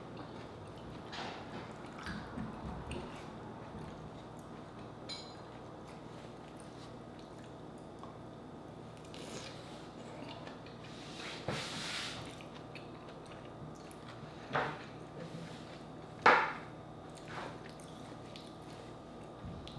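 Eating sounds: biting and chewing orange slices, with scattered short clicks and smacks, the sharpest one late on.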